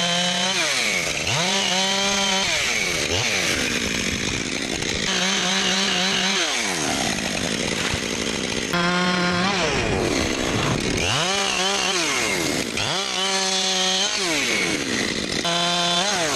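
A two-stroke chainsaw, revved up to full throttle, held there, then let drop back, over and over, about every two to three seconds.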